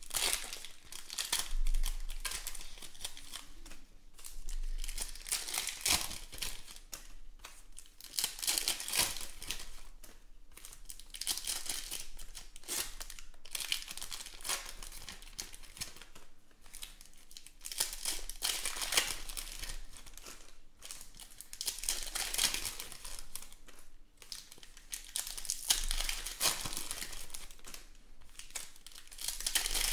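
Foil trading-card pack wrappers being torn open and crinkled by hand, in repeated bursts every few seconds.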